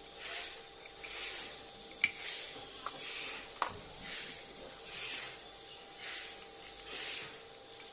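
Plastic lightsaber hilt parts being handled and fitted together, with a few sharp clicks and rubbing, the loudest click about two seconds in. Under it runs a soft hiss that swells about once a second.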